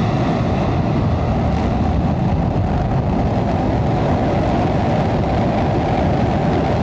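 Fourteen Raptor engines on a SpaceX Starship Super Heavy booster firing together in a static fire test, the vehicle held down on the pad: a loud, steady rocket-exhaust rumble.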